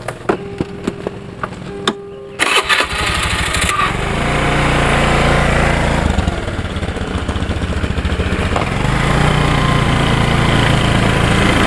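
A few light clicks, then a motor scooter's engine is started about two and a half seconds in, cranking briefly before it catches. It then runs steadily, a little louder in the second half.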